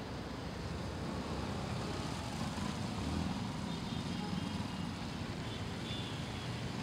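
Steady traffic noise from scooters and motorcycles running through floodwater on a waterlogged road.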